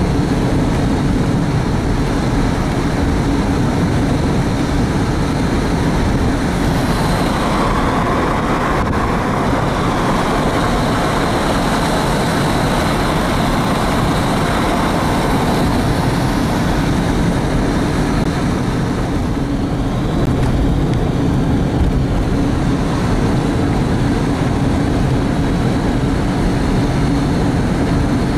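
Steady engine and tyre noise of a diesel car driving on worn, patched asphalt, heard from inside the cabin.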